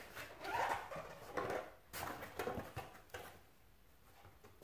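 Cardboard panels being picked up and handled: rustling and scraping for about three seconds, then quieter.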